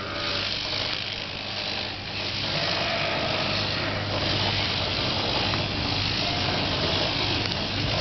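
Electric sheep-shearing machine running with a steady motor hum while the handpiece clips the fleece off a sheep.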